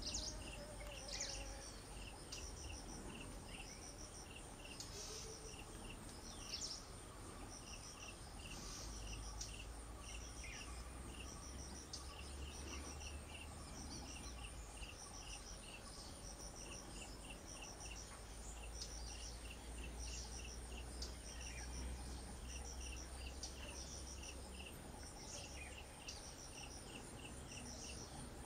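Wetland insects, crickets among them, chirping in short repeated pulses over a steady high trilling buzz, with a few sharper high chirps mixed in.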